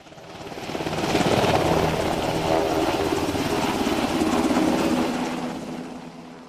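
Helicopter sound effect: the chop of the rotor blades with the engine under it. It fades in over the first second, holds steady, and fades away near the end.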